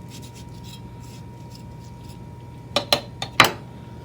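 Knife cutting into a vegetable: light scraping at first, then four sharp clicks in quick succession about three seconds in.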